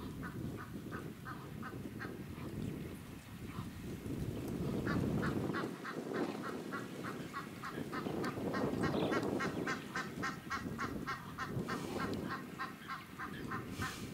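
Egyptian geese honking in a fast, rhythmic series of short calls, about four a second. The calls pause briefly about two seconds in, then resume and keep going.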